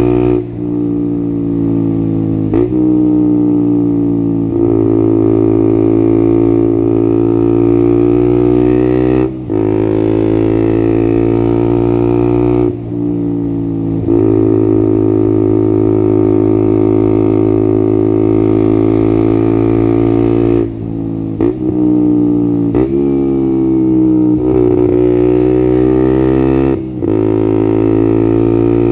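Single-cylinder four-stroke engine of a 2021 KTM Duke 125, straight-piped with no catalytic converter or dB-killer, running loudly and steadily. Its drone is broken by about a dozen brief dips, after which the pitch bends slightly before holding again.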